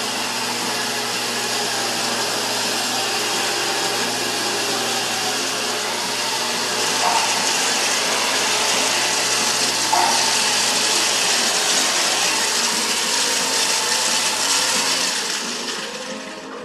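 Large circular saw ripping lengthwise through a heavy rough-sawn timber for a new wooden boat keel, the blade cutting steadily with a broad whine. The cut grows a little louder about seven and ten seconds in, and the saw eases off near the end.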